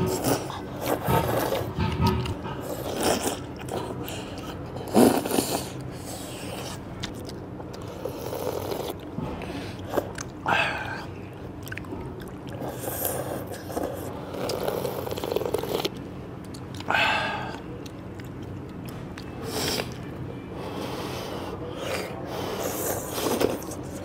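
People slurping knife-cut noodles and broth from bowls: irregular sucking slurps, with several louder ones a few seconds apart.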